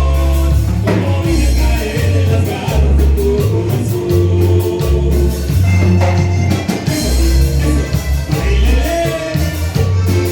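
A band playing Latin-style music with singing over a heavy bass line.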